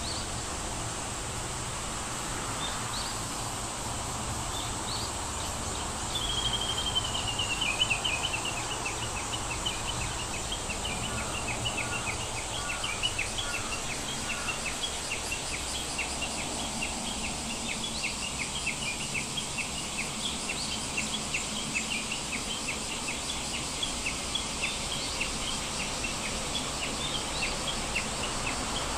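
Outdoor nature ambience: birds chirping over a steady high hiss. About six seconds in, a bird gives a falling trill, then keeps up a long run of quick repeated chirps.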